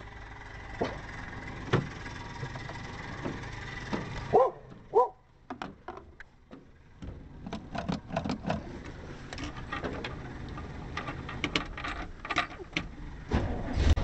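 A dog barks a few times, twice loudly about four to five seconds in, over a steady hum with a thin whine from the running electric air horn compressor. Then there are handling clicks and knocks in the motorhome cab, and just before the end the motorhome's engine is started and keeps running.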